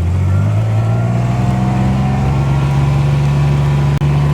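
A vehicle engine pulling away, its pitch rising over the first second or so, then running steadily at a constant speed.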